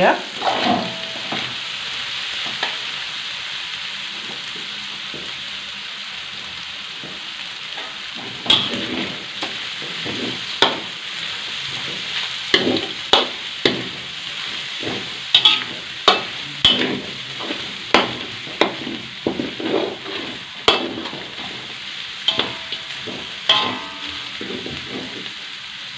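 Squid and chicken pieces with shallots and garlic sizzling as they are stir-fried in a wok, with a steady hiss throughout. A metal spatula scrapes and knocks against the pan, sparse at first and then several times a second through the second half.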